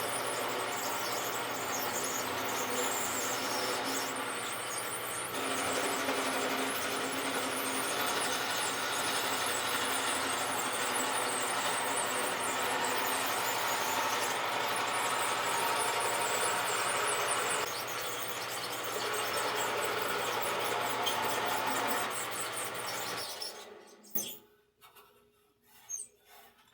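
Rockwell wood lathe running with a turning tool cutting into the spinning bat blank, rounding it over: a steady motor hum under a rough, shifting scraping noise. The lathe shuts off about 23 seconds in, followed by a few light knocks.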